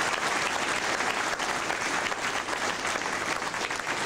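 Audience applauding steadily, a round of applause from a seated group of several dozen people.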